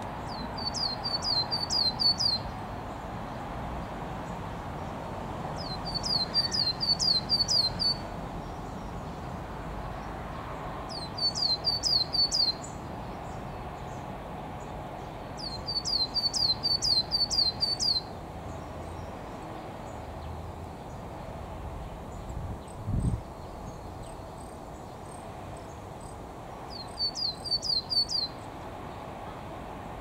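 Coal tit singing: five short phrases of quickly repeated high, thin notes, one every few seconds. A short low thump comes between two of the phrases.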